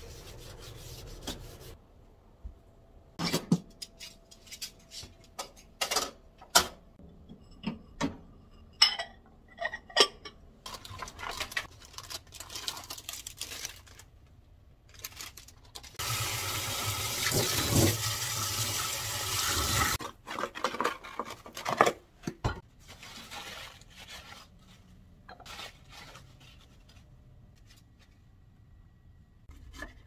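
Scattered knocks and clatters of kitchen handling, then tap water running steadily into a stainless steel bowl in a metal sink for about four seconds midway through.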